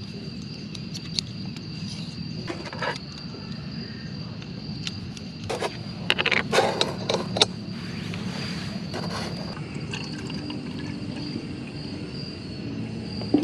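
Metal clicks and clatter as the folding legs and pot supports of a remote-canister gas stove are opened out and handled on an aluminium camp table, with the densest run of clicks about halfway through. A steady high-pitched insect trill continues underneath.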